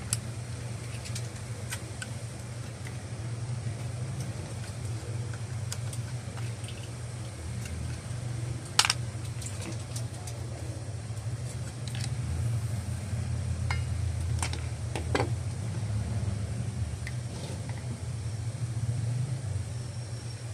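Light clicks and taps of metal parts and a screwdriver being handled while a Daisy Power Line 1200 airgun is taken apart, with one sharper knock about nine seconds in. A steady low hum runs underneath.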